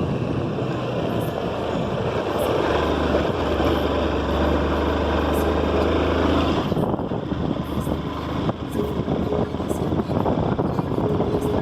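Motorcycle engine running during a ride, with wind noise over the microphone. About seven seconds in the engine drops back and short knocks and rattles come through.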